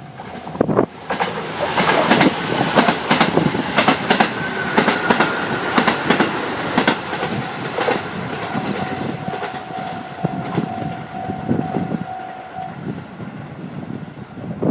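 Diesel train passing over a level crossing, its wheels clacking rhythmically over the rail joints, loudest in the first half and easing off toward the end as it moves away.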